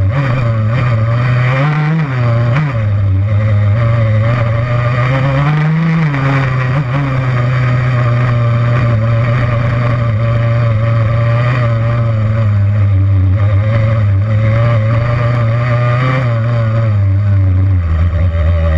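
Yamaha YZ85's two-stroke single-cylinder engine running steadily while being ridden. The revs rise briefly twice in the first few seconds, then drop to a lower, steady pitch near the end.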